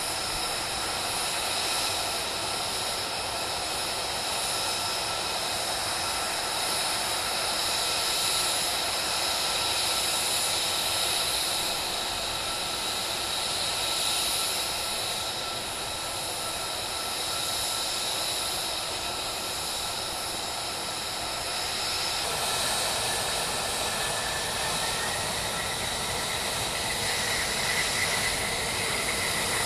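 F-35A's Pratt & Whitney F135 turbofan running at low taxi power: a steady jet rush with a high whine. In the last several seconds one whine tone climbs slightly in pitch and then dips again.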